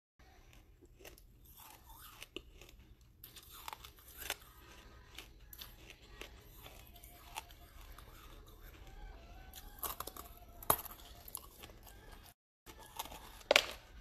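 Red brick being crunched and chewed in a person's mouth, close to the microphone. Irregular sharp crunches run through it, the loudest two near the end.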